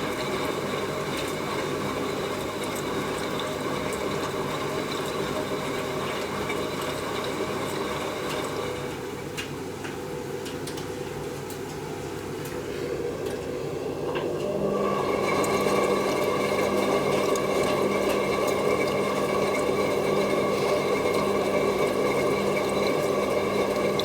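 Hotpoint WM31 washing machine tumbling during its wash: the drum motor whines for about nine seconds, stops for a few seconds while a water-like wash sound carries on, then starts again louder for the rest of the stretch.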